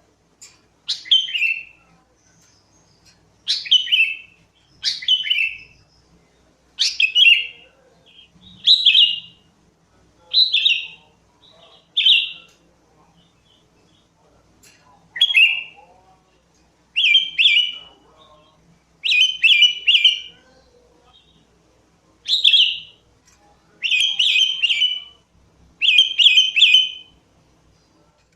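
Sooty-headed bulbul (kutilang) singing: short separate phrases, one every second or two with brief pauses between. Toward the end several come in quick pairs.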